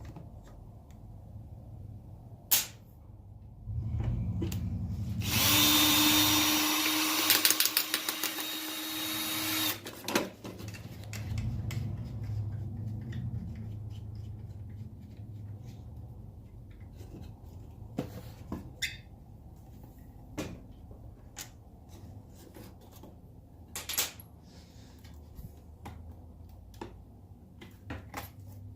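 A power drill running at a steady pitch for about four seconds, likely driving or removing the brake light's fasteners. Scattered sharp clicks and knocks come before and after it.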